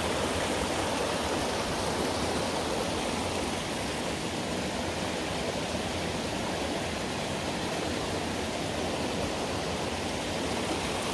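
Mountain-valley stream flowing, a steady rush of water.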